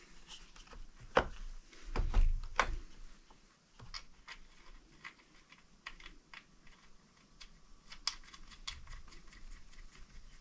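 Light metallic clicks and rattles of a chainsaw chain and bar being handled and seated on a Husqvarna Rancher 455, with a louder knock and clatter about one to three seconds in.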